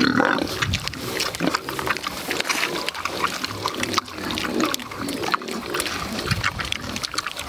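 Kunekune piglets eating peeled banana from a hand, grunting, with a quick, irregular run of wet chewing clicks.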